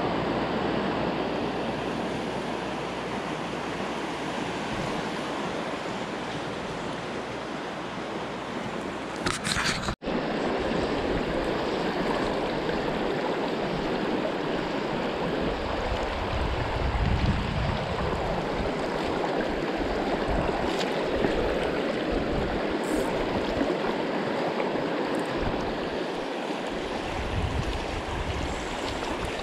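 Rushing white water of river rapids, a steady dense rush that cuts out for an instant about ten seconds in.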